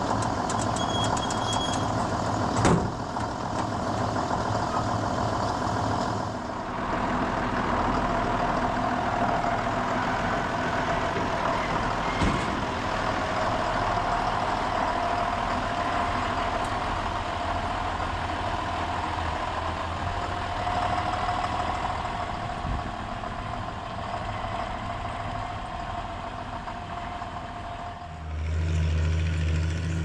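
John Deere tractor's diesel engine running steadily. The sound changes abruptly about six seconds in, and again near the end, where it gives way to a deeper engine hum.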